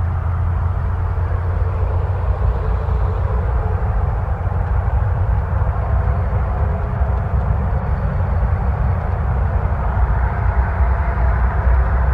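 Steady low engine drone and tyre and road noise of a Chevrolet motorhome driving at highway speed, heard from inside the cab.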